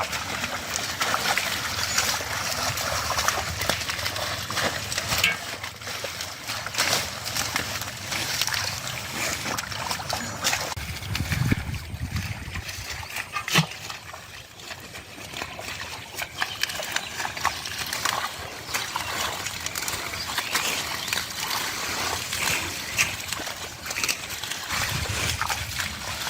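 Water splashing and sloshing in an irregular run of short splashes and drips, typical of hands groping through shallow muddy water and hyacinth for catfish.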